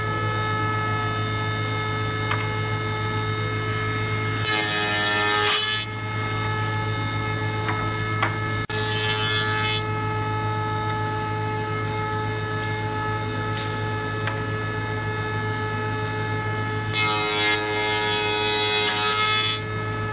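Wood shaper with a power feeder running, a steady hum with several constant whining tones. A board being fed past the cutter brings louder rasping cutting noise three times: briefly about four seconds in, shortly again a few seconds later, and longest for a few seconds near the end.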